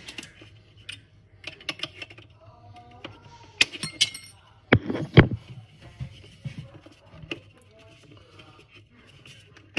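Metal pliers and hard plastic mounting pieces being handled against a wooden cabinet: scattered clicks, clinks and small snaps, with a quick run of sharp clicks about three and a half seconds in and two louder knocks around five seconds.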